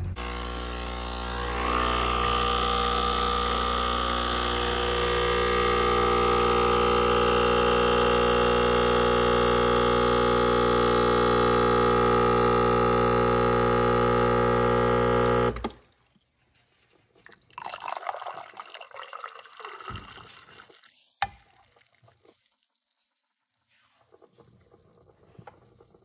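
Espresso machine's pump humming steadily as it pulls a shot, growing louder over the first few seconds and cutting off suddenly about two-thirds through. After it, quieter pouring of liquid into a mug, with a sharp click.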